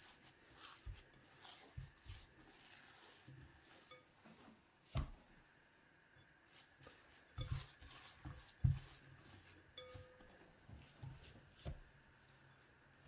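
Quiet kitchen handling sounds while baking: scattered light knocks and clinks of utensils and dishes. The sharpest knocks come about five seconds in and again a few seconds later.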